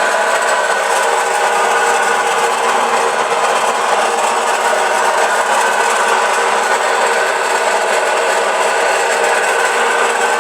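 Samsung washer-dryer on its spin cycle, running with a steady, loud abnormal noise: several fixed whining tones over a hiss, the fault the machine is being looked at for.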